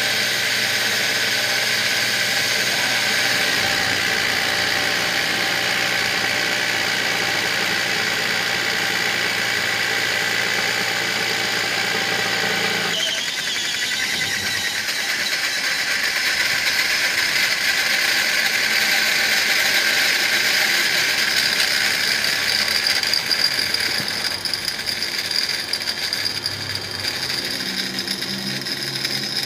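Brookstone 12 V air compressor pumping against about 190 psi with a steady hum. About halfway through the low hum cuts out and the motor rises in pitch to a higher, rattling whir: the drive cog has sheared, so the motor spins free without driving the piston.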